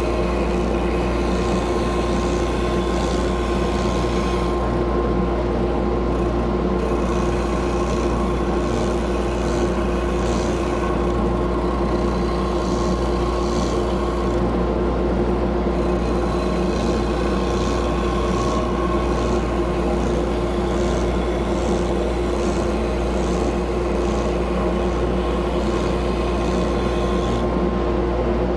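Oscillating drum sander running steadily with a constant hum and whine, its abrasive sleeve sanding the edge of a curved wooden board.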